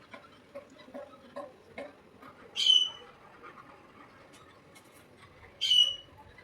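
Pet parrot giving two short, loud, shrill calls about three seconds apart, with faint scattered clicks between them.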